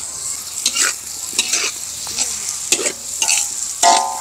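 Food sizzling in a hot pan while it is stirred with a metal utensil: about six scrapes across the pan over a steady high hiss, with a ringing metallic clink near the end.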